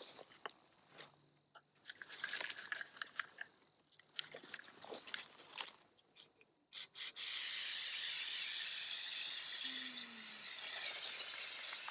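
Scattered clicks and rustling, then about seven seconds in a Flex Seal rubberized-coating aerosol can starts spraying with a loud, steady hiss.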